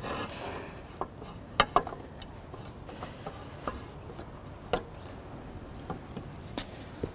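Light metallic clicks and taps at irregular intervals as the feed boom of a portable satellite antenna is seated on its mount and its wing nuts are put on by hand; the sharpest come about a second and a half in and again near five seconds.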